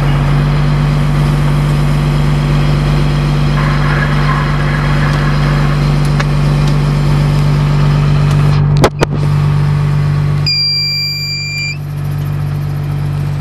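Fishing boat's engine running steadily with a low, even hum. Two sharp clicks come about nine seconds in, and a high electronic beep lasts about a second soon after.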